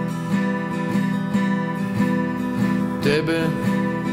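Acoustic guitar strummed in a steady rhythm of about three strokes a second, holding sustained chords. A voice comes in singing a single word near the end.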